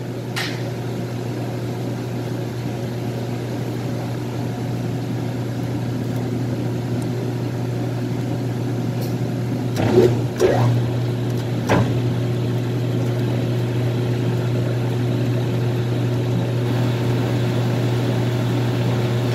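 Metal lathe running steadily under power while it screws a hydraulic hose into a reusable fitting's collar, with two short clunks about ten and twelve seconds in.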